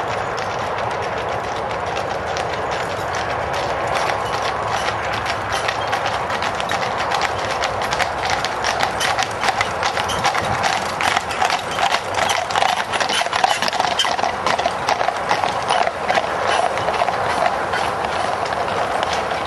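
Hooves of a four-horse team clip-clopping on a tarmac road as they draw a carriage past. The hoofbeats grow louder and denser about four seconds in, are loudest through the middle, and ease off slightly near the end.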